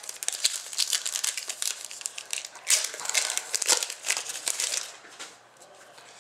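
A trading card pack's wrapper being torn open and crumpled, a dense crinkling that dies away about five seconds in.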